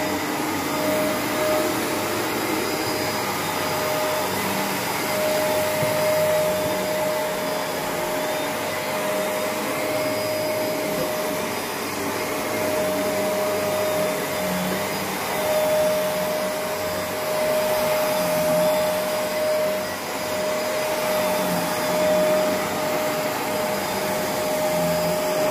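Shark Rotator upright vacuum running over an area rug: the steady rush of suction with a high motor whine on top, swelling and easing slightly as the cleaner head is pushed back and forth.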